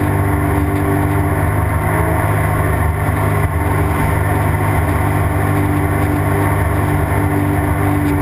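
Sea-Doo GTX jet ski engine running steadily at cruising speed, heard close up from the front of the hull, over the rush of water.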